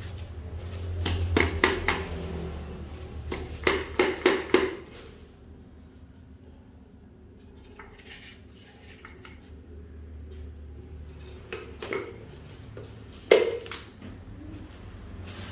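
Knocks and clinks of a small blender cup and jars being handled and set down, in two quick clusters of several knocks and then two single knocks near the end, over a low steady hum.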